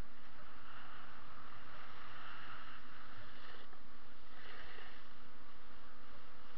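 Snowboard sliding over packed, tracked snow: a steady hiss of the board scraping the surface, swelling louder for the first three and a half seconds and again briefly about four and a half seconds in.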